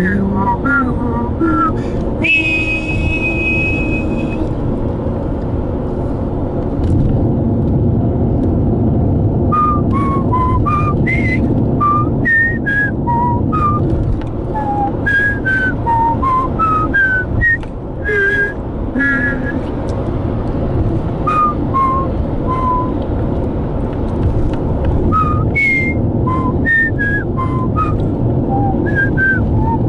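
A person whistling a melody in short notes, with one long held high note about two seconds in. The whistling carries over the steady road and engine rumble inside a moving car.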